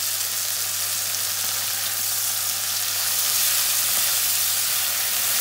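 Thin beef tenderloin steaks frying in melted butter in a cast-iron skillet: a steady sizzle that grows slightly louder about halfway through.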